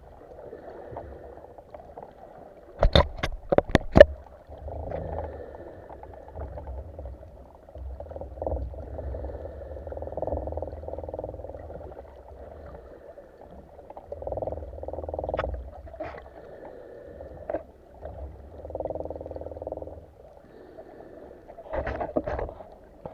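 Muffled underwater water noise heard through a camera's waterproof housing, swelling and fading every second or two, with a quick run of sharp clicks about three seconds in and a few more sharp clicks near the end.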